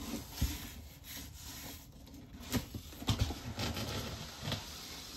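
A large cardboard box being handled: cardboard rubbing and scraping as it is lifted and shifted, with a few knocks, about half a second in and again around three seconds in.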